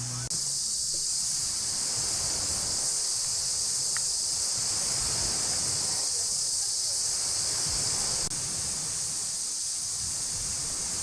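Steady, high-pitched chorus of insects, with a low rumble of wind on the microphone underneath.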